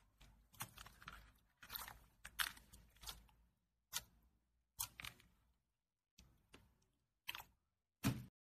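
Blue glitter slime being pressed, poked and folded by hand: short wet squishing and crackling bursts, about nine in all, separated by dead silence, the loudest near the end.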